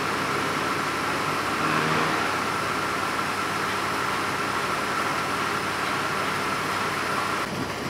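Road traffic noise: vehicle engines running steadily, with a steady high tone that cuts off suddenly near the end.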